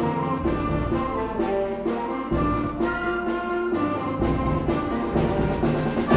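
Student concert band playing: sustained brass and tuba notes with woodwinds over repeated percussion strikes.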